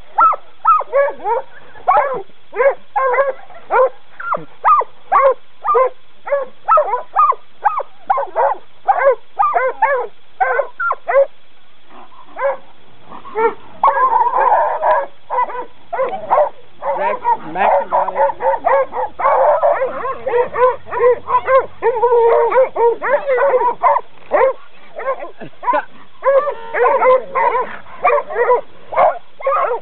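A pack of young bluetick coonhounds barking excitedly as they lunge at a fur lure swung on a rope. At first the barks come in a quick, even run of about two or three a second. After a brief lull about halfway through, several dogs bark over one another in a dense, continuous clamour.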